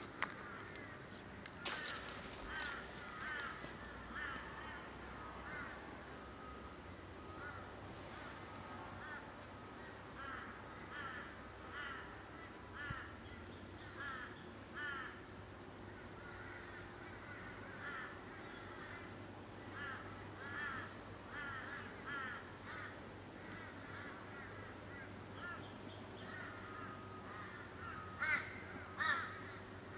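Wild birds calling in runs of short, repeated notes, with a few sharp clicks about two seconds in and again near the end.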